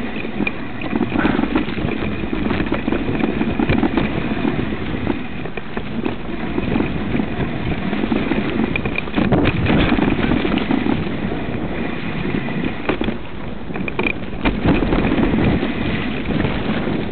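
Mountain bike riding fast down a rough, leaf-covered woodland trail: steady wind rush on the camera microphone over tyre rumble, with frequent knocks and rattles from the bike over the bumps.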